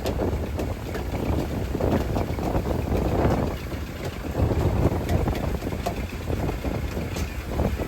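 Fishing boat under way at sea: its engine running steadily, with wind buffeting the microphone in uneven gusts.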